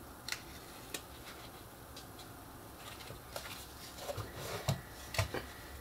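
Faint handling of paper and chipboard: the paper backing of double-sided score tape being peeled off a chipboard flap, with a few light ticks, then rustling and soft taps as the chipboard piece is handled over the last couple of seconds.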